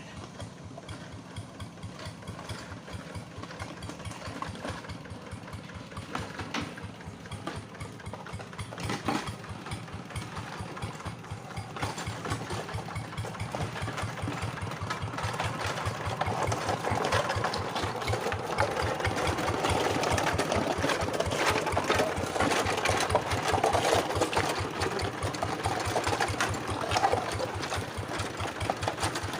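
Two-wheel hand tractor's single-cylinder diesel engine chugging in a steady, even beat, gradually growing louder.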